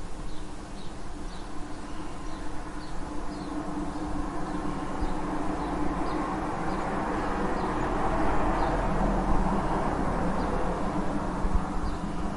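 Street ambience: traffic noise swelling as a vehicle passes, loudest about eight to ten seconds in, with birds chirping in short, high, repeated notes throughout.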